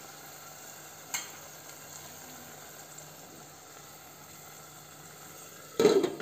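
Tomato and onion masala with a little water sizzling steadily in a stainless steel pot, with a light knock about a second in. Near the end a glass lid is set down on the pot with a clatter.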